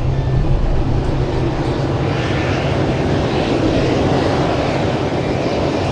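Jet airliner's turbofan engines running, a loud steady rushing noise with a brighter hiss that swells from about two seconds in.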